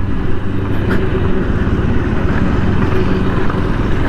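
TVS Apache RTR 160 4V single-cylinder engine running steadily under the rider, with wind and road noise on the helmet-mounted microphone.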